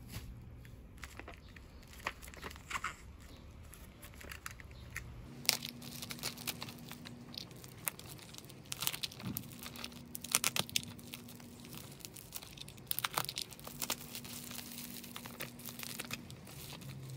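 Plastic bubble wrap crinkling and crackling as it is handled and pulled at by hand. Sparse at first, then dense, sharp crackles from about five seconds in.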